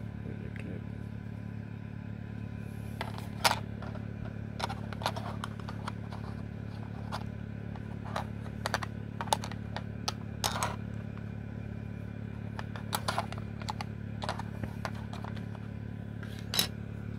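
Irregular sharp plastic clicks and taps as the detachable battery cover of a Sony WM-FX425 cassette Walkman is handled and pressed onto the player, the loudest about three and a half seconds in and again near the end. A steady low hum runs underneath.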